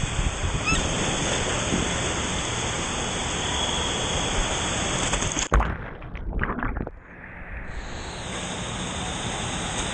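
Steady rushing noise, with a sharp knock about five and a half seconds in, after which the noise drops away briefly and returns a little quieter.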